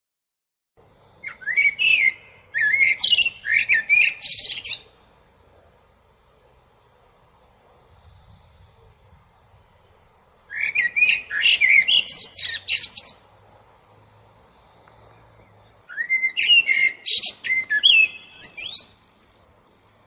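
Common blackbird singing in three bouts of warbling song, about a second in, about ten seconds in and about sixteen seconds in, each a few seconds long with pauses between. Faint thin high notes from other birds come in the gaps.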